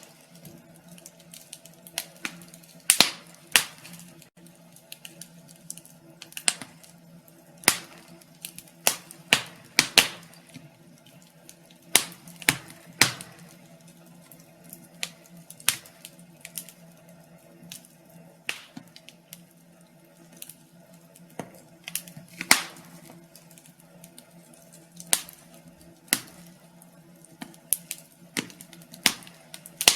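Wood fire in a fireplace crackling, with irregular sharp pops and snaps, some much louder than others, over a faint steady low hum.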